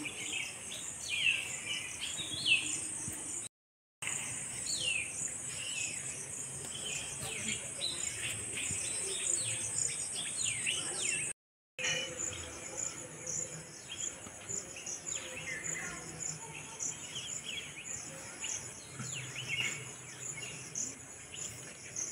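Small birds chirping with many short, quick falling calls over a steady, pulsing, high-pitched insect chorus of crickets or cicadas. The sound cuts out briefly twice.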